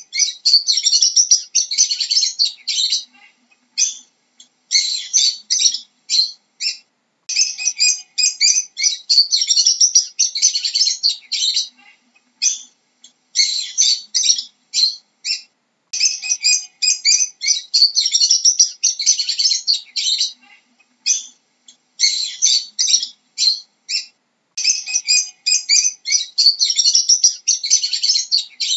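Lovebirds chirping: bouts of rapid, high-pitched chirps a few seconds long, broken by short pauses with scattered single chirps.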